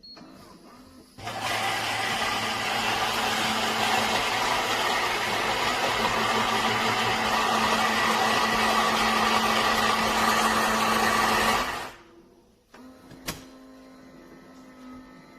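Philips 3300 Series automatic espresso machine running loudly for about ten seconds with a steady motor hum, starting about a second in and cutting off suddenly. A fainter steady hum with a couple of clicks follows.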